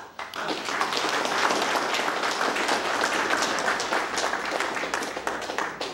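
Crowd applauding: many hands clapping together, starting at once and dying away near the end.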